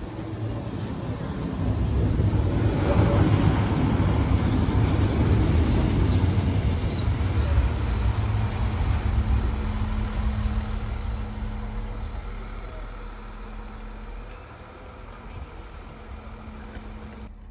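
Arriva regional diesel multiple unit, an Alstom Coradia LINT, pulling out of the station: its diesel engine and wheels rumble loudest for the first several seconds, then fade as it moves off, leaving a steady engine hum.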